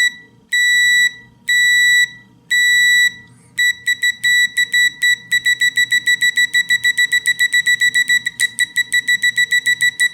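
Tilswall FY8233X digital multimeter's continuity beeper, one high-pitched tone. First come four half-second beeps about a second apart, then a fast run of short beeps, about five a second, as the probe tips are tapped together and lifted quickly. The beeper follows each contact quickly.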